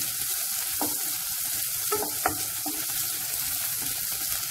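Chopped onions and garlic sizzling in hot oil in a nonstick kadai, stirred with a wooden spatula that scrapes and knocks against the pan a few times.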